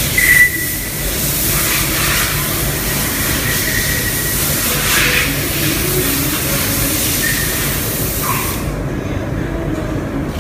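Rubber compression-moulding presses running: a steady low machine hum under a loud hiss, which cuts off suddenly about eight and a half seconds in.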